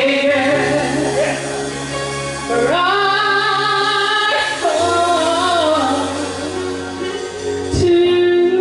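Church worship song: a woman singing long held notes with vibrato, the melody climbing about two and a half seconds in, over instrumental backing with steady bass notes.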